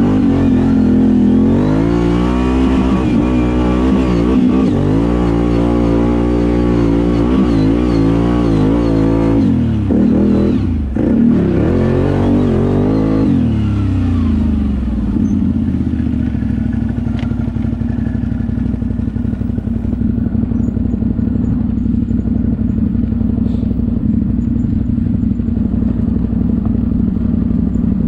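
ATV engine running under load, its pitch rising and falling again and again. About ten seconds in it drops briefly, revs up once more, then falls away to a steady low idle for the second half.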